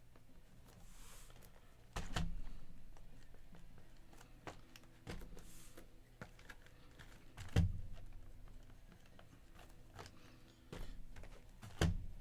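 Trading cards being handled and set down on a tabletop: a series of light knocks and thumps a couple of seconds apart, the loudest near the middle and near the end, with soft sliding rustles in between.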